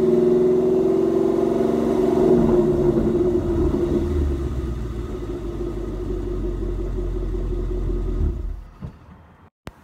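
Ford Mustang GT's 5.0 V8 running through GT500 chambered mufflers and a high-flow H-pipe, a deep exhaust note with lots of low end. It is loudest under throttle for the first two seconds or so, eases to a steadier, lower level, and cuts off sharply about eight and a half seconds in.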